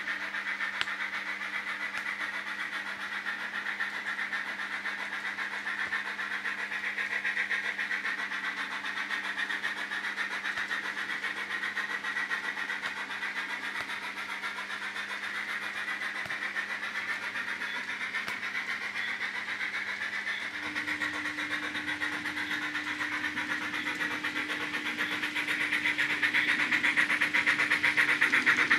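HO-scale model steam locomotive and passenger coaches running on the track: a steady rolling rattle of small wheels on rail over a constant motor hum. It grows louder over the last few seconds as the train comes close.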